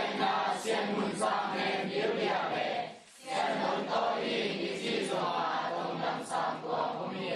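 A group of voices chanting together in unison, with a short pause about three seconds in.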